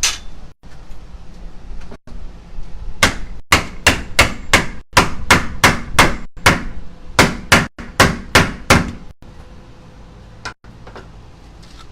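A hammer striking in a rapid run of about twenty sharp blows, a couple of seconds apart at most, starting about three seconds in, after one single knock at the start, while a new window is being set into its opening.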